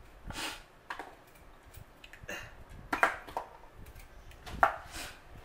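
Fresh ginger root being peeled on a cutting board: a series of short, irregular scrapes and light clicks.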